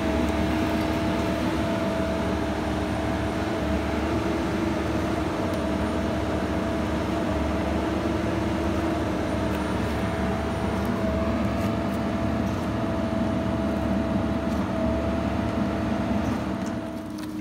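Engine-driven hydraulic power unit of a pipe-bursting rig running steadily, a constant drone with a steady whine on top, as it drives the hydraulic cable puller.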